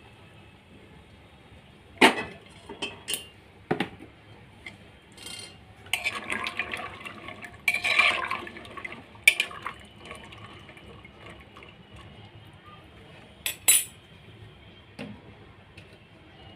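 Dark tea-leaf water being poured and sloshed into an aluminium pressure cooker of soaked chickpeas, with a busy splashy stretch in the middle. Sharp metal clinks of a steel pot and tea strainer against the cooker come several times, the loudest about two seconds in and near the end.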